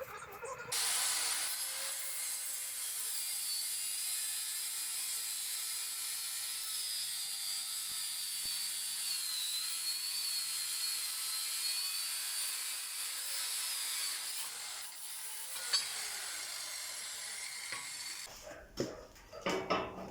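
Angle grinder grinding or cutting steel: a steady high hiss with a whine that wavers and sags under load. It starts just under a second in and stops about two seconds before the end.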